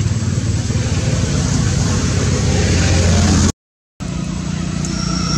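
Steady loud rumble and hiss with no clear source, broken by about half a second of total silence at an edit about three and a half seconds in. After the gap the rumble carries on, with a faint high thin tone near the end.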